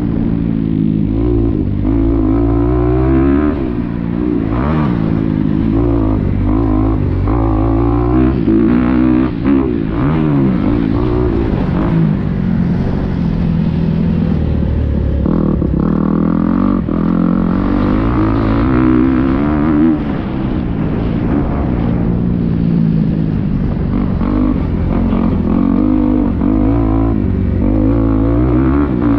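Motocross bike engine heard up close from the rider's position, revving up and dropping back again and again as the rider accelerates, shifts and backs off around the dirt track.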